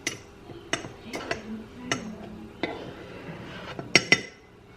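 Kitchen utensils and dishes clinking and knocking: a few separate knocks spaced about half a second to a second apart, some ringing briefly, then a louder clatter of clinks about four seconds in.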